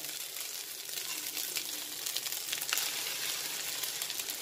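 Rice frying in hot oil in a wok, a steady sizzle, as egg white is poured in, with a few light clicks of a metal spatula.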